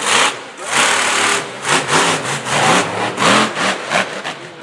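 Monster truck engine revving hard in a quick series of throttle blips, its pitch rising and falling with each one.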